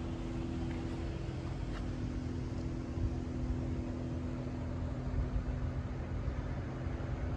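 A car on the move: a steady engine hum over low, wavering road rumble.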